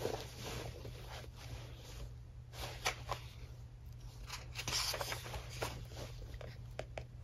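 Pages of a paperback book being flipped and turned by hand: a scattered run of soft, brief paper rustles.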